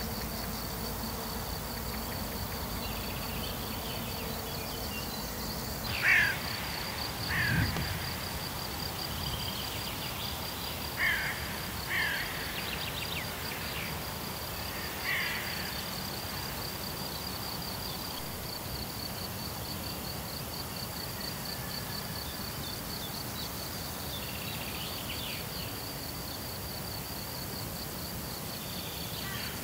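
Meadow ambience: an insect chirring continuously in a steady, high, rapidly pulsing trill. Several short bird calls come singly and in pairs, mostly in the first half.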